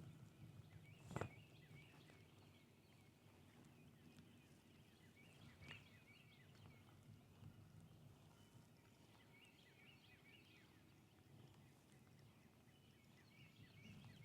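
Near silence, with faint distant birdsong: short chirping phrases repeating throughout. A single soft knock about a second in.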